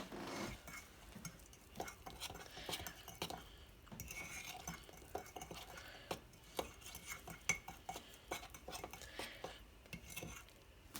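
Cake batter being stirred in a mug: a utensil clinking and scraping irregularly against the inside of the mug.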